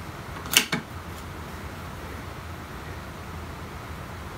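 M25 9mm (.35 calibre) air rifle's action being worked for the next shot: a sharp clack about half a second in and a smaller one right after, over a steady low background hum.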